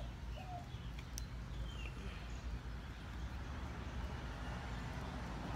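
Outdoor background: a steady low rumble, a dove cooing once near the start, a few faint high chirps, and a single sharp click about a second in as a hand crimping tool closes on a cable end.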